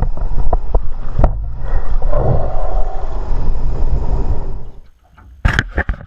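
Wind rumbling over the camera microphone, mixed with water splashing at the side of a boat as a fish is netted. Near the end the rumble stops suddenly, and a few sharp clicks and knocks follow.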